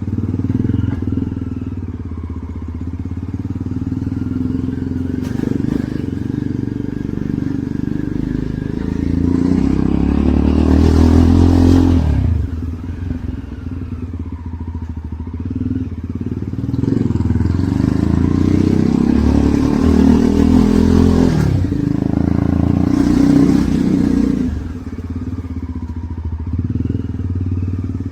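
Jawa Perak motorcycle's single-cylinder engine running under way. It builds up twice, about nine seconds in and again from about seventeen seconds, then drops back each time as the throttle comes off.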